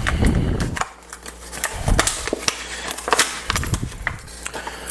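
A new lock cylinder's packaging being opened by hand: a quick run of sharp clicks, crackles and bumps.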